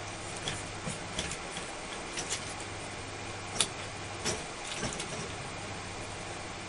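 Light clicks and taps of a wire cage as cats bat and claw at the bars, about a handful scattered through, the sharpest about three and a half seconds in, over a steady background hiss and low hum.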